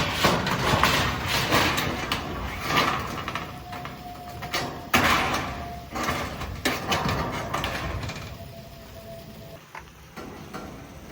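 Building work on a wooden structure: irregular knocks, bangs and scraping of timber and tools, louder in the first half and tailing off near the end.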